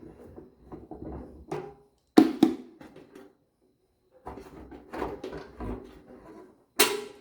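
Hand tools and loose metal parts rattling and clanking during fender-bolt removal, with sharp knocks: two close together about two seconds in and one near the end.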